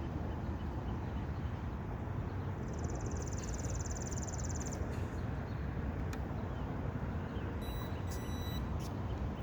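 Steady wind rumble on the microphone outdoors, with a brief high buzz about three seconds in.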